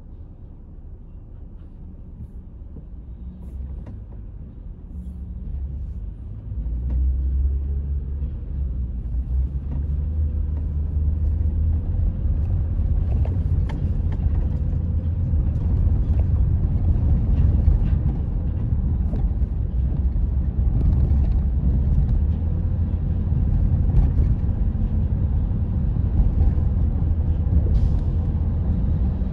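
Low rumble of a car's engine and tyres heard from inside the cabin: quiet while stopped, then swelling about six seconds in as the car pulls away and settles into a steady drive.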